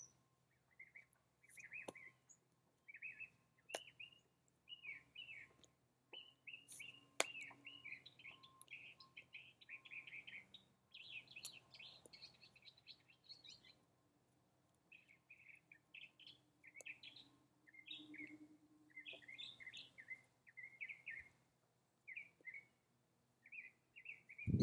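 Faint outdoor birdsong: small birds chirping in many quick, short calls, with a few sharp clicks among them.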